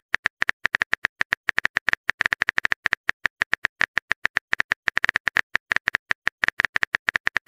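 Smartphone on-screen keyboard typing sounds: a quick, irregular run of short clicks, several a second, as a text message is typed.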